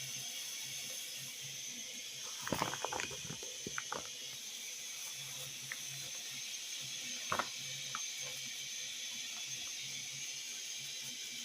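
Steady hiss from the ugali pot on the fire, with a quick run of knocks and scrapes about two and a half seconds in and one sharp knock near the middle, like a cooking stick or spoon hitting the pot.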